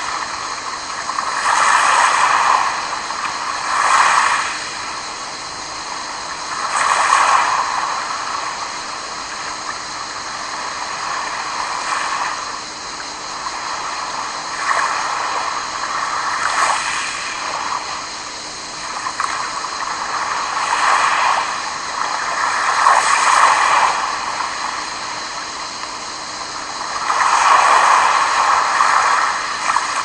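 Small sea waves lapping onto a pebble beach and around rocks, each wash swelling and ebbing at irregular intervals of a few seconds.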